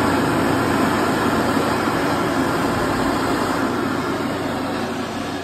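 Bobrick B-750 electric hand dryer running: a steady rush of blown air over a low motor hum, easing off slightly near the end.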